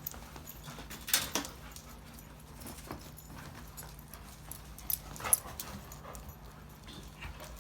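Golden retriever puppies and their parent dogs playing, a low scatter of scuffles and knocks with soft dog sounds. The clearest scuffles come about a second in and again near five seconds.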